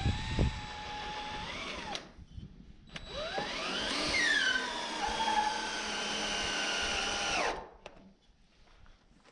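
Power drill driving a long bit through the corner joint of a rough-cut lumber frame, in two runs. The first run lasts about two seconds. After a short pause the motor spins up again, drops in pitch as the bit bites into the wood, and runs steadily until it stops about seven and a half seconds in.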